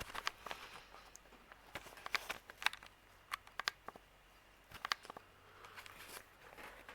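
Scattered light clicks and taps of handling, several of them in small clusters, over a faint steady low hum.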